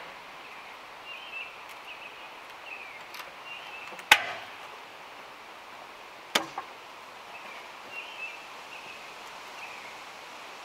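Two sharp knocks about two seconds apart, the first the louder, as a log is rolled onto the steel log bunks of a band sawmill.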